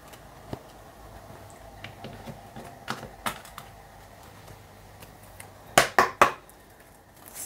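Light clicks and taps of cards being handled on a wooden tabletop, with three loud sharp clicks close together about six seconds in.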